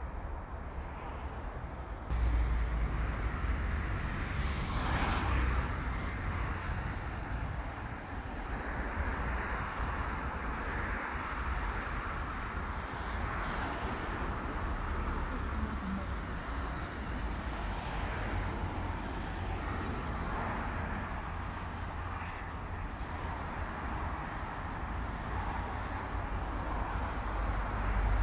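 Highway traffic noise: a steady rush of cars and lorries passing below, with a deep rumble and a louder vehicle pass about five seconds in.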